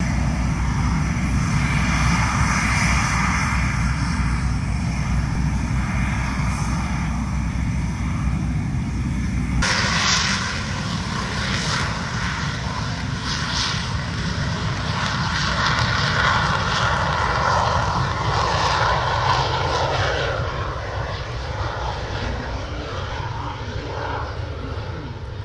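Engines of two military aircraft running loudly on the runway and through their takeoff, the noise fading slowly near the end as they move away.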